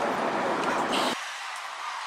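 Rushing noise of a bus passing at close range, which cuts off abruptly just over a second in and gives way to a quieter, thinner street background.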